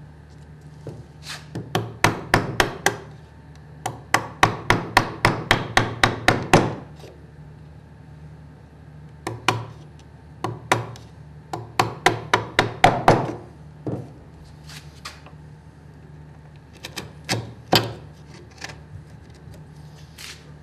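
Wood chisel struck in quick runs of sharp taps, about four a second, with pauses between runs, as it pares the wall of a cross halving joint socket back toward the pencil line.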